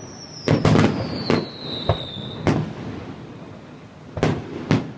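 Fireworks display: sharp, echoing bangs from exploding shells, a quick cluster about half a second in, then single bursts, a lull, and two more bangs near the end. A long high whistle slowly falls in pitch and cuts off at one of the bangs.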